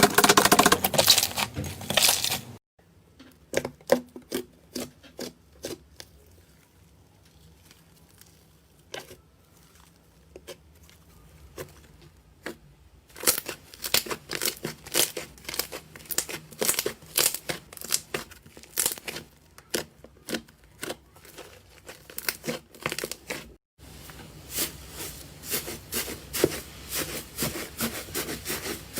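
Slime being squeezed and worked by hand, giving rapid sticky clicks and crackles. The clicking thins out to sparse pops for several seconds from about three seconds in, then turns dense again.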